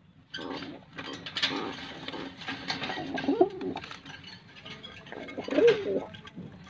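Fantail pigeon cooing twice, about three and a half and five and a half seconds in, with rustling and clicking noises around the coos.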